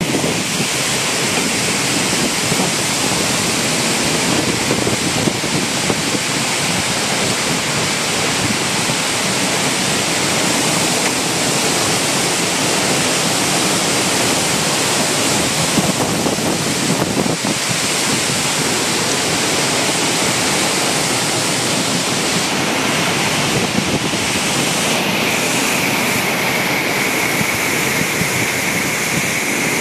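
Severe thunderstorm: heavy rain and strong wind through trees make a loud, steady rush, with wind buffeting the microphone. About 25 seconds in, a faint high, steady whine comes in over it.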